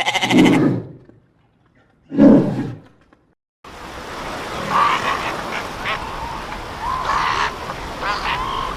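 Animal calls: two harsh calls about two seconds apart, then a steady noisy background with several shorter calls over it in the second half.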